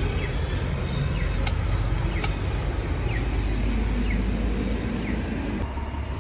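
City street traffic noise: a steady low rumble of passing cars and buses, with two sharp clicks about a second and a half and two seconds in, and a few faint short chirps.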